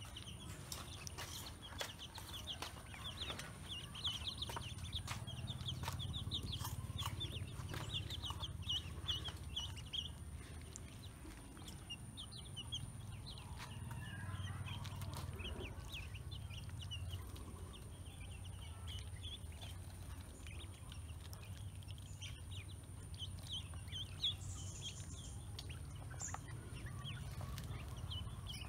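Ducklings and a chick peeping: many short, high peeps coming in quick clusters, over a steady low rumble.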